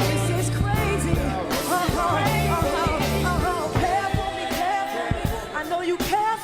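Pop/hip-hop song playing: sung vocal lines over sustained bass notes.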